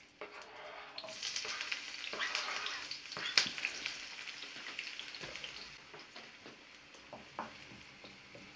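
Chopped onion dropping into hot oil in a frying pan and starting to sizzle about a second in. The sizzle is loudest at first and then dies down, with one sharp knock a little after three seconds and a few short clicks of stirring near the end.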